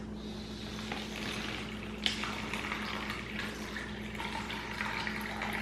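Water poured from a plastic water bottle into a plastic MRE beverage bag, a steady trickle throughout, with one light click about two seconds in.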